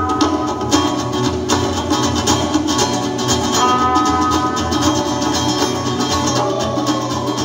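Live rock band playing: a steady low bass line, repeated drum hits and held instrumental tones, one of which bends slowly in pitch near the end.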